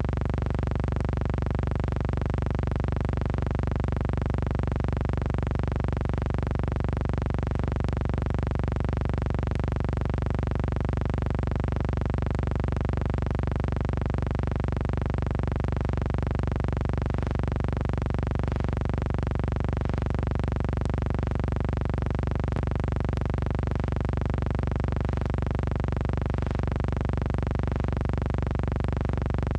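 A steady, unchanging electronic hum with many overtones, holding the same pitch throughout.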